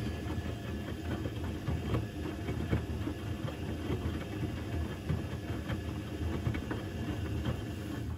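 Electrolux EWC1050 washing machine in its hot wash phase: the drum motor hums steadily as the drum turns a load of towels through hot water, with an irregular sloshing and splashing from the wet load.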